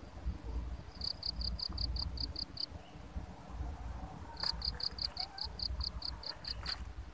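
Insect chirping in two runs of rapid, evenly spaced high pips, about five or six a second, the first starting about a second in and the second in the latter half. A steady low rumble runs underneath.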